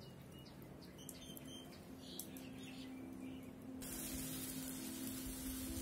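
Birds chirping, then about four seconds in a steady sizzling hiss from meat cooking on a charcoal grill as sauce is brushed on.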